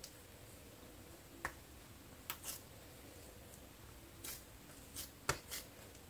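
Hands patting and pressing soft yeast dough flat between the palms: a few faint, short pats and clicks, spaced unevenly.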